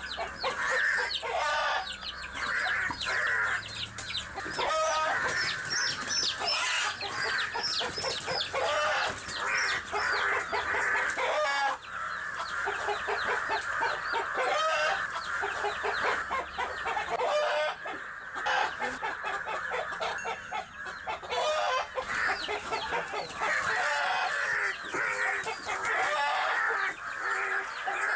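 Chickens squawking and cackling, call after call without a break, in agitation while a hen fights a crow.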